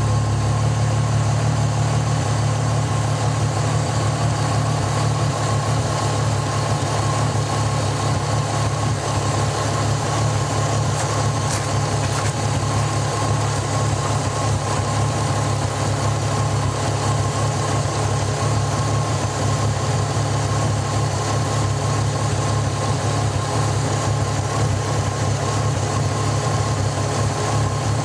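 Mk3 VW Golf's converted 24-valve VR6 engine idling steadily, heard over the open engine bay, with an even low note that never rises or falls.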